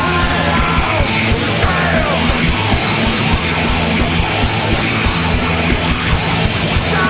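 Loud distorted rock instrumental break: noisy, fuzzed guitars with sliding, falling notes over a steady drum beat.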